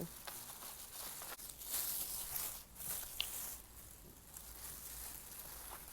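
Rustling and light clicks of takeout food packaging being handled and opened.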